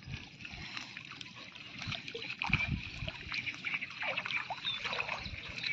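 Water trickling and splashing as a fishing net is raised out of shallow creek water, with irregular small splashes from fish thrashing in the net. A couple of dull thumps come about halfway through.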